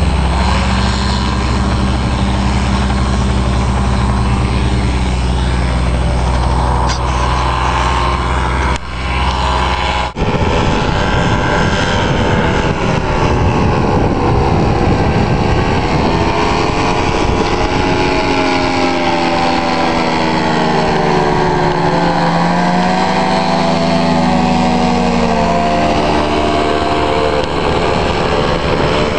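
Paramotor engine and propeller droning steadily. After a break about ten seconds in, the pitch rises and falls as the powered paraglider flies in low and close.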